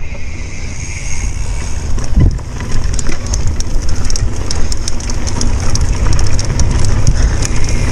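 Mountain bike riding fast over bumpy dirt singletrack: wind buffeting the microphone and tyre rumble, with many quick rattling clicks from the bike over the bumps from a couple of seconds in.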